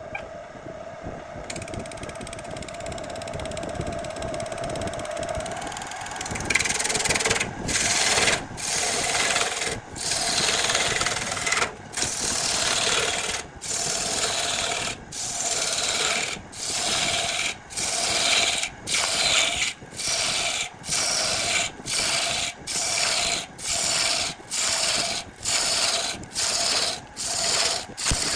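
Lathe running with the spinning jackfruit wood being worked against a tool or abrasive: a steady hum with light scraping at first, then from about six seconds in a regular series of loud rasping strokes, a little more than one a second.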